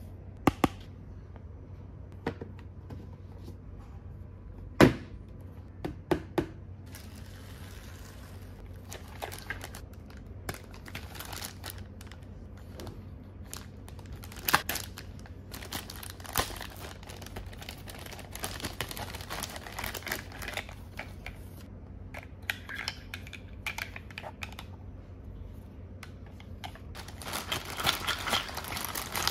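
Hard plastic toy parts clicking and knocking a few times, the sharpest about five seconds in. Then a thin clear plastic bag crinkling as it is slit with a utility knife and handled, busiest near the end.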